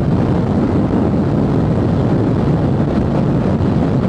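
Steady wind rush on a handlebar-mounted camera's microphone, mixed with a Yamaha Factor 150's single-cylinder engine running hard at about 117 km/h.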